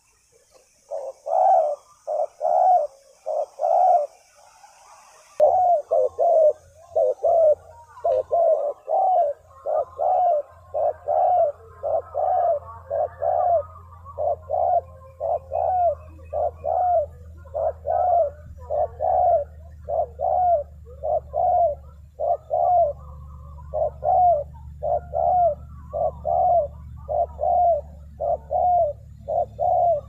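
Spotted doves cooing: an unbroken series of short, low coos, about two a second.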